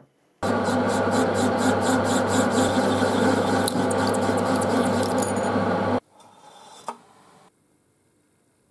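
Metal lathe running and cutting a metal washer, a steady grinding cut with a faint pulsing about four times a second. It cuts off suddenly about six seconds in, followed by a soft rustle and a single click.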